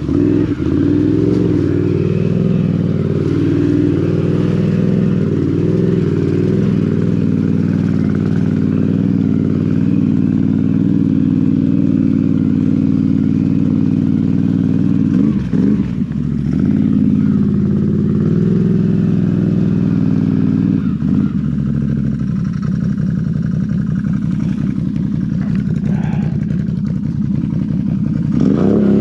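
Can-Am Renegade XMR 1000's Rotax V-twin engine running through RJWC dual aftermarket exhaust pipes as the ATV rides through standing water, the engine note rising and falling with the throttle. The revs drop briefly about halfway through and pick up again near the end.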